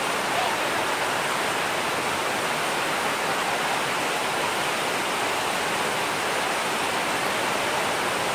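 Monsoon-swollen hill stream rushing and splashing down a steep rock cascade, a loud, steady roar of white water.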